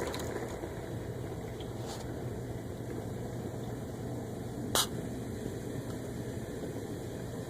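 Samsung WaterWall dishwasher running: a steady mechanical hum over an even wash of water noise, with one short sharp click about five seconds in.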